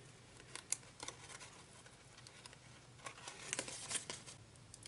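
Faint crinkling and light clicks of a sticker sheet being handled as a word sticker is picked off its backing, busiest about three to four seconds in.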